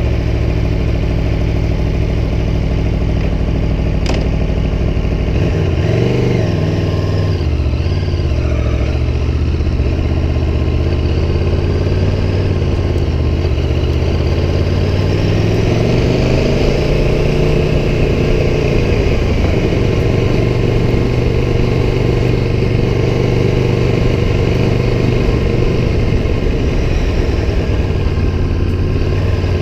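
Aprilia Tuono V4 1100 Factory's V4 engine running under way. Its pitch rises and falls briefly several seconds in, climbs again about halfway through, then holds steady.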